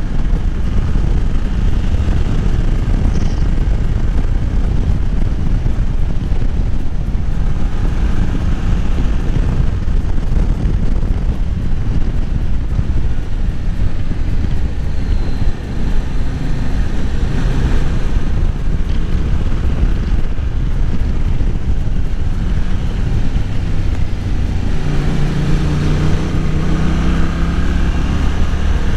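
Wind rushing over the microphone on a Yamaha Tracer 7 under way, with the bike's 689 cc parallel-twin engine running underneath. About 25 seconds in, the engine note comes through more clearly and rises in pitch.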